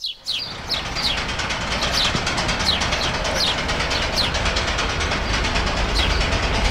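Sound-effect ambience: a steady low mechanical rumble with hiss, fading up over the first second. Over it, a bird gives short descending chirps, repeating about every two-thirds of a second.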